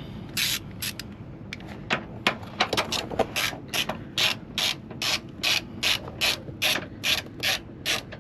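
Hand ratchet wrench clicking in repeated back-and-forth strokes as suspension bolts are tightened down. The strokes are irregular at first, then settle into a steady rhythm of about two and a half a second.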